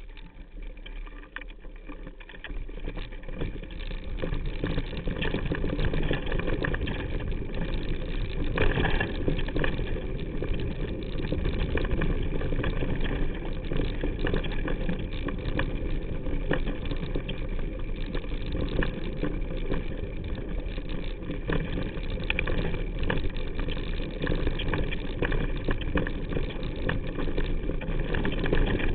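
Mountain bike riding fast down rough dirt singletrack: tyres crunching over dirt and stones, the bike and its handlebar-mounted camera rattling and knocking over the bumps, with wind rushing on the microphone. It grows louder about three seconds in.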